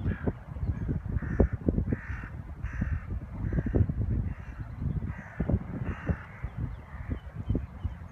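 Crows cawing over and over, about ten caws, one or two a second. Under them runs a louder low rumble with thumps.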